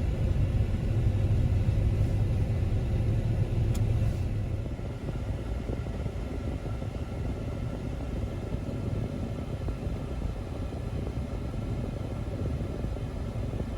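Steady low rumble of a car or truck driving, engine and road noise, dropping somewhat in level after about four seconds.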